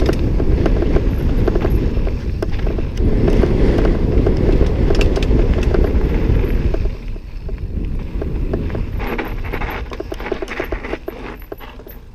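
Mountain bike rolling fast down a dirt trail: wind rush on the helmet camera's microphone and tyre noise, with frequent small rattles and clicks from the bike. It drops sharply about seven seconds in and keeps fading as the bike slows.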